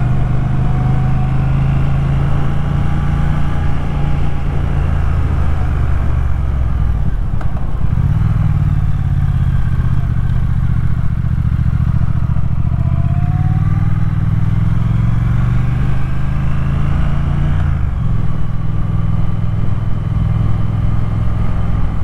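Triumph Thruxton R's parallel-twin engine running steadily while the motorcycle is ridden along, heard from on the bike. The engine note changes about eight seconds in and again a few seconds before the end.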